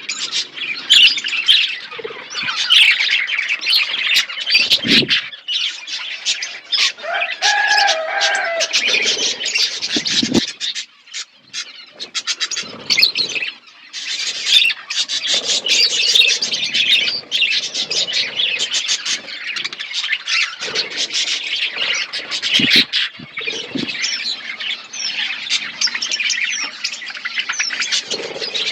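A flock of caged pet birds chirping and chattering continuously with squawks, easing off briefly about ten seconds in, with a few soft thumps.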